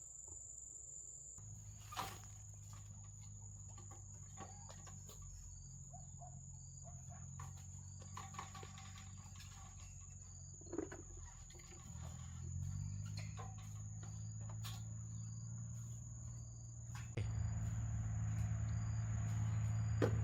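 Insects chirring: a steady, high-pitched trill. Under it a low mechanical hum comes in and grows louder in steps toward the end. Scattered light knocks and clicks from work on the wooden frame are heard throughout.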